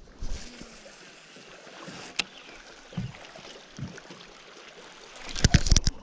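Steady wind and light water noise around an open boat on a lake, with a sharp click about two seconds in and a few soft thumps. Near the end comes a burst of loud knocks and rubbing as the camera is handled.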